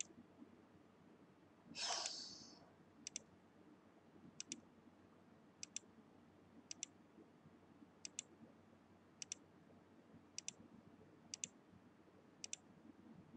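Computer mouse button clicking, each click a quick press-and-release double tick, about once a second as photos are paged through. About two seconds in there is a single short breath-like rush of noise, the loudest sound here.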